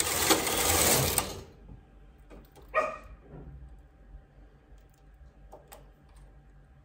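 Knitting machine carriage pushed across the needle bed, a loud sliding noise lasting about a second and a half. About three seconds in, a short bark from a dog, followed by faint small clicks.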